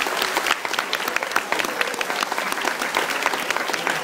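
Audience applauding, many hands clapping at once, steady throughout.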